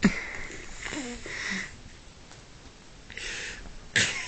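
Fabric rustling and scuffling as a kitten wrestles a plush toy, with a sharp bump at the start and another near the end.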